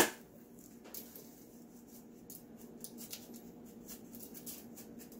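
Seasoning rub being shaken from a shaker bottle over chicken wings on a foil-lined pan: faint, irregular light ticks and rattles of the dry rub, after one sharp click at the very start.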